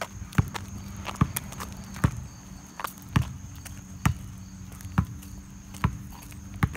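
Footsteps of a person walking on pavement, one sharp step a little more than once a second.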